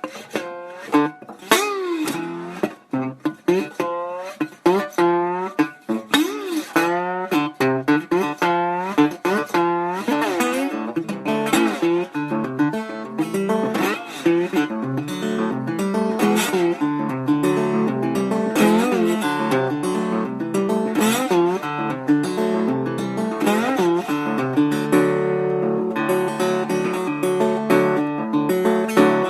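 Slide guitar playing: plucked notes glide up and down in pitch, giving way about ten seconds in to a denser run of strummed chords.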